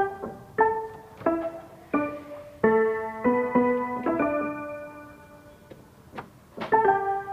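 Background piano music. Single notes are struck about every two-thirds of a second, then a held chord fades away around the middle, and a few more notes come near the end.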